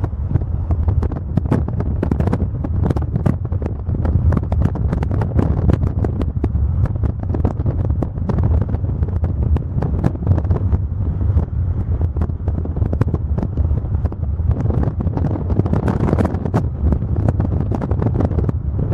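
Loud wind buffeting the microphone: a continuous low rumble with frequent crackling pops.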